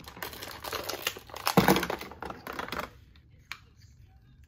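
Clear plastic toy packaging crinkling and rustling as it is handled and pulled open, loudest about a second and a half in, then dying down to a few light clicks after about three seconds.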